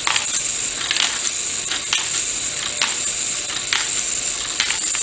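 LEGO Great Ball Contraption Jigsaw module running: plastic gears and moving parts give a steady dense rattle, with a sharper click about once a second as the mechanism cycles. It is geared to its highest ratio, biggest gear driving the smallest.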